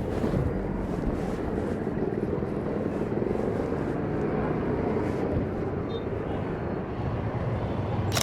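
A motor vehicle engine runs steadily with a low hum, and there is a single sharp click right at the end.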